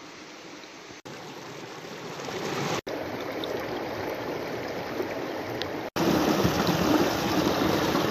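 Mountain stream water running over rocks, heard as a steady rushing in short clips that cut off abruptly and restart; it grows louder with each clip and is loudest from about six seconds in.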